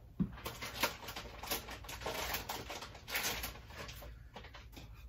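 Irregular light clicks, taps and scrapes of kitchen handling: utensils and dishes being moved about.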